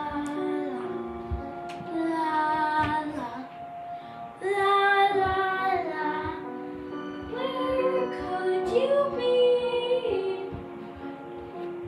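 Background music: a high voice sings slow, held notes with small slides between them, over soft sustained low tones.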